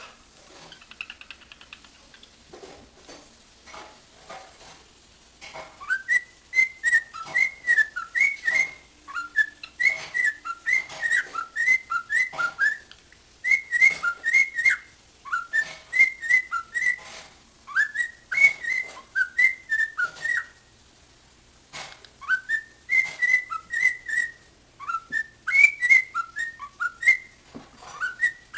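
Cockatiel whistling its song: phrases of short, rising whistled notes repeated over and over, beginning about five seconds in, with a pause of about a second near the three-quarter mark. Soft clicks and faint chirps come before the whistling starts.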